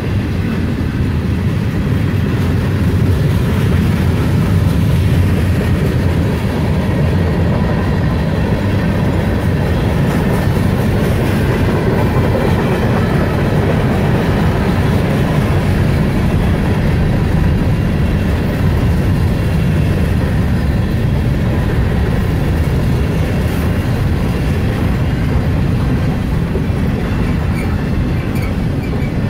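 Freight train of hopper, tank and container cars rolling past at trackside: a steady, even rumble of steel wheels on the rails, with wheel clicks over it.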